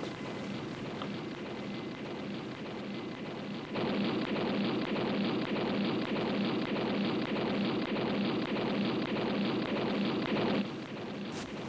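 Steady rushing, rumbling noise of a soundtrack drone with no clear pitch. It jumps abruptly louder about four seconds in and drops back suddenly about a second before the end.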